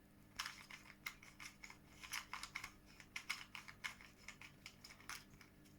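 Roxenda speed cube being turned by hand: faint, irregular plastic clicks and clacks of its loose layers.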